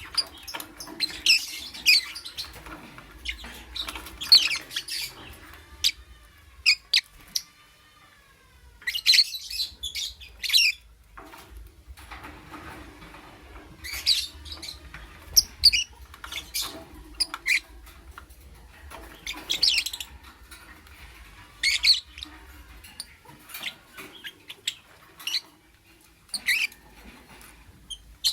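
Lovebird chirping: sharp, high chirps in irregular bursts, with brief pauses between them.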